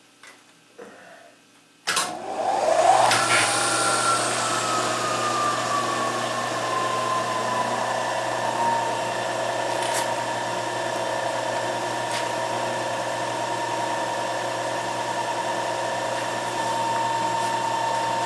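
Milling machine started about two seconds in for drilling holes in a hinge piece: the spindle motor spins up with a rising whine, then runs steadily, its tone sliding lower over the next several seconds before holding level. A few light clicks come before it starts.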